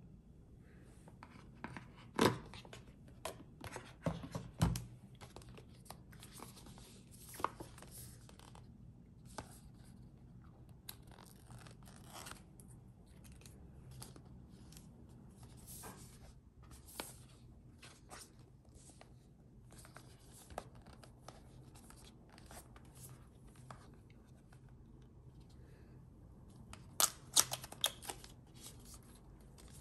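Hands handling Apple Watch paper and cardboard packaging: paper sliding, rustling and tearing, with scattered sharp clicks and taps, the loudest about two seconds in, around four to five seconds in, and a cluster near the end.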